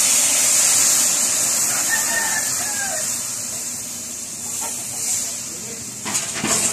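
Coca-Cola poured into a hot wok of shrimp, sizzling loudly as it hits the pan and steams, the sizzle slowly dying down. A rooster crows faintly in the background about two seconds in, and a couple of sharp knocks come near the end.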